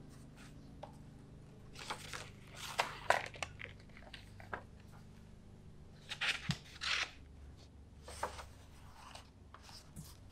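Sketchbook pages handled and turned by hand: paper rustling and crackling in a few short bursts, about two seconds in, again around six seconds, and once more near eight seconds, over a low steady room hum.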